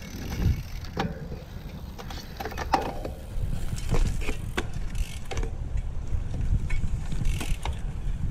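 Cyclocross bike ridden over a sandy, bumpy track: a steady low rumble of tyres and riding noise, with several sharp clicks and rattles from the chain and frame over the bumps.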